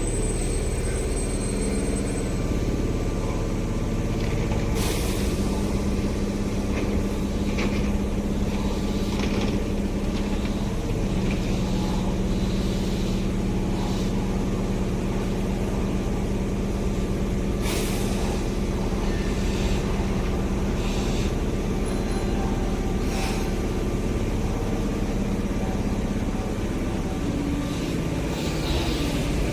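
Sanyo Electric Railway train at the station: a steady electric hum of several tones, broken by a few short hisses such as air brakes give.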